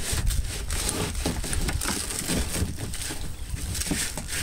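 Rustling, bumping and knocking of gear being handled in a kayak, in many irregular small knocks, over a steady low rumble on the microphone.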